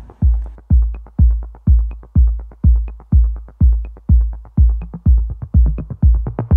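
Electronic dance music: a heavy kick drum about twice a second with light ticks above it.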